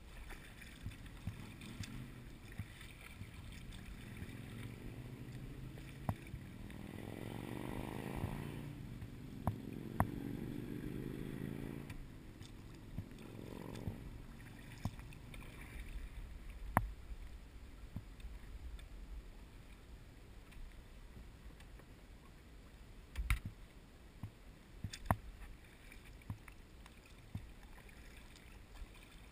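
Kayak being launched and paddled: scattered sharp knocks on the hull over a low rumble of water, with a long scraping groan from about six to twelve seconds in and a shorter one near fourteen seconds.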